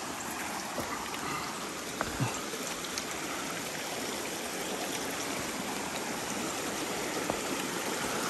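Shallow creek running over rocks, a steady rushing and trickling of water. A couple of brief knocks come about two seconds in.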